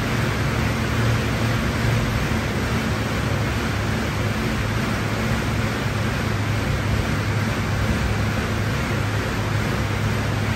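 Air bike's fan wheel spinning fast under hard pedalling and arm pushing: a steady, loud whoosh of air with a low hum underneath.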